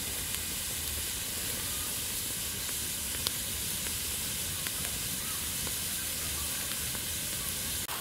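Coconut liquid boiling inside a bamboo tube over a wood fire: a steady sizzling hiss as it froths at the rim and drips down into the flames, with a few small crackles.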